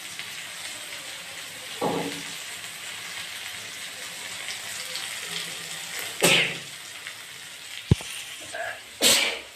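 Chilli masala sizzling steadily as it fries in a kadhai, with a sharp knock of the spatula on the pan near the end. Over it come two loud, harsh bursts from the cook, about six and nine seconds in, as the chilli fumes burn her nose and throat.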